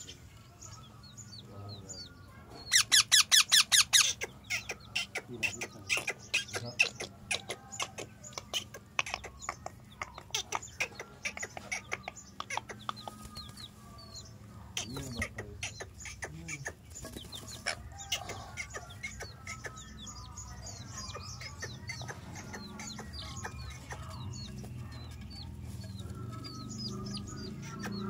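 Bird calls: young parakeets giving short sharp calls, with a loud rapid run of calls about three seconds in, and a chick peeping.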